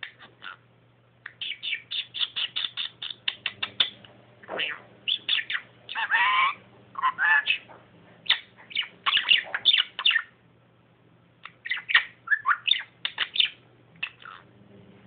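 Budgerigar chattering: quick runs of chirps and clicks, with a warbling passage about six seconds in and a couple of short pauses.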